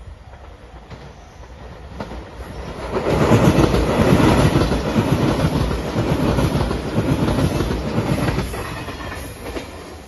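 Five-car JR Shikoku 8000 series electric limited express passing close by. Its wheels rumble and clickety-clack over the rail joints, swelling about three seconds in, holding for about five seconds, then fading near the end.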